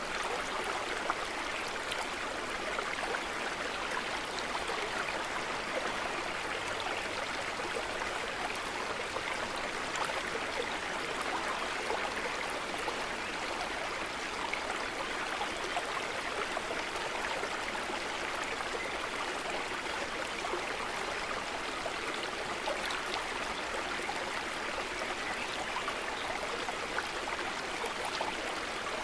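Water of a stream running, a steady, even rush with no breaks.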